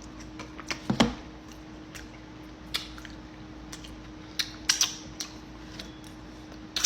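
Mukbang eating sounds: scattered short clicks and taps of chewing and handling fufu and soup, over a steady low hum.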